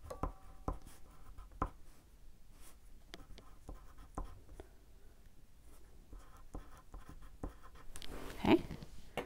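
A wax crayon scribbling on paper while a colour is swatched, with small clicks and taps throughout and a louder scrape near the end.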